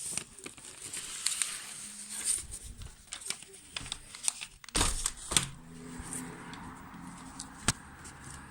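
A sheet of A4 paper being handled and folded: rustling and crinkling, with sharp creasing snaps, the sharpest about halfway through and another near the end.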